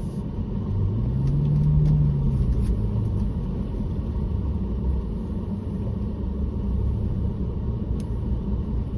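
Vehicle engine running with a steady low rumble as it is driven slowly. The engine note rises and falls once between about one and three seconds in.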